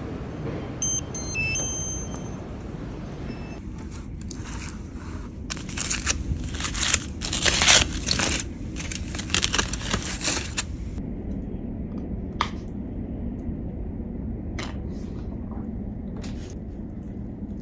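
Aluminium foil crinkling and crackling loudly as it is peeled open by hand, in a run of sharp crackles from about five to eleven seconds in. Earlier, about a second in, a few short high electronic beeps sound as a button panel is pressed; a few single clicks follow the unwrapping.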